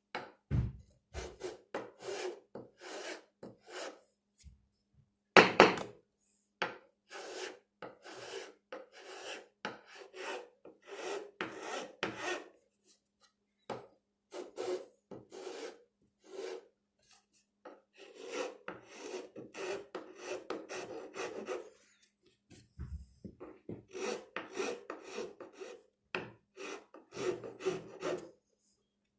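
Four-in-hand rasp scraping along a wooden axe handle, shaping it: runs of rasping strokes at about two a second, broken by short pauses, with one louder stroke about five seconds in.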